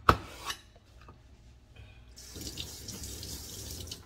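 A kitchen knife is drawn once, sharply, across a sharpener just as the sound begins. About two seconds in, a tap starts running water steadily into a sink and stops just before the end.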